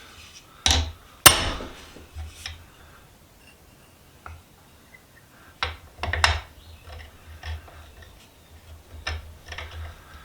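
Hammer strikes on a bent steel vise handle, knocking down a high spot to straighten it: a handful of separate sharp blows at uneven intervals, the loudest about a second in with a brief ring.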